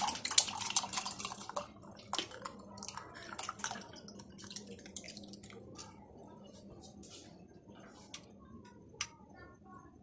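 Watermelon sharbat poured from a jug into a stemmed wine glass: a splashing pour for about a second and a half, thinning into drips and small splashes, then a few light clicks of glass.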